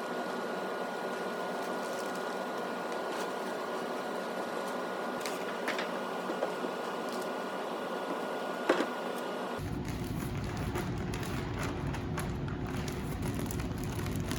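Steady mechanical background hum with a faint constant whine and a few light clicks. About ten seconds in it switches abruptly to a lower, heavier rumble.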